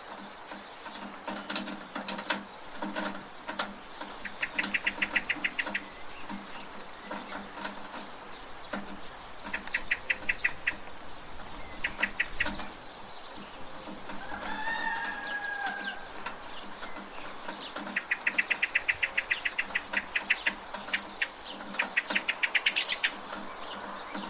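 Steady rain hiss with a rooster crowing once about midway, and bursts of rapid bird trills, about ten notes a second, recurring several times.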